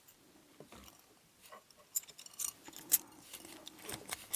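Small padlock and its metal parts being handled: scattered light metallic clicks and taps, a few at first and then a cluster of sharper ticks from about two seconds in.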